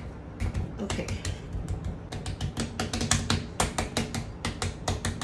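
Palm patting and slapping a ball of pastry dough flat on a granite countertop: a quick, uneven run of sharp taps, several a second.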